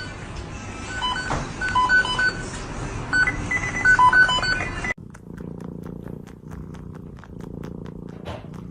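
Short electronic beeps at a few different pitches over a noisy background. After a sudden cut, a cat purring steadily.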